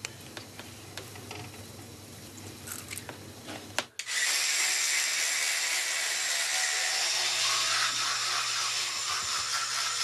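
Faint clicks over a low hum, then a sharp click about four seconds in as an electric toothbrush switches on. It runs with a steady high buzz while brushing teeth.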